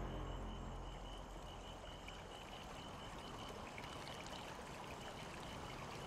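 Faint, steady trickle of running water with a thin high steady tone above it, as background music fades out in the first second.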